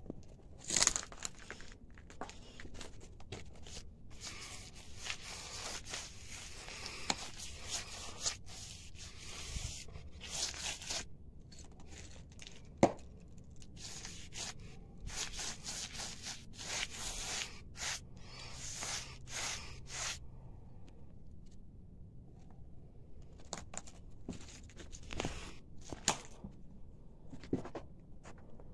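Repeated scraping, rubbing strokes of a paint-loaded applicator being worked across a rough wall, in irregular runs with a quieter pause about two-thirds of the way through. One sharp click, the loudest sound, comes near the middle.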